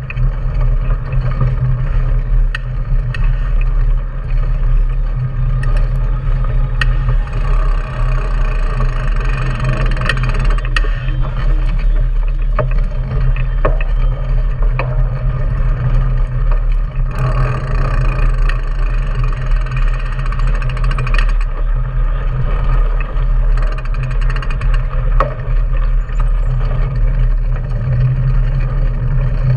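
Steady wind buffeting and road rumble on an action camera mounted on a moving mountain bike, its knobby front tyre rolling on pavement, with scattered small rattles and clicks.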